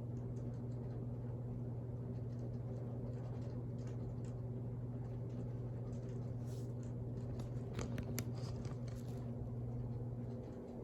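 Sears ceiling fan with an Emerson motor running on high speed: a steady motor hum with scattered light ticks, which come thicker for a moment about eight seconds in.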